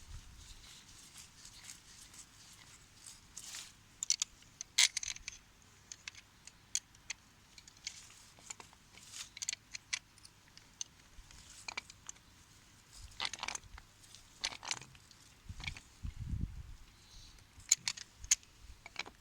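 Irregular sharp clicks, crackles and small knocks of hand work on a plastic compression coupling and polyethylene pipe. A few dull low thumps come in the latter half.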